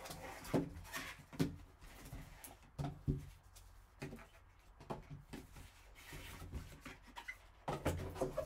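Cardboard card box and its foam insert handled by gloved hands: irregular rubbing and scraping of cardboard and foam with scattered light knocks as the box is opened and the insert lifted out.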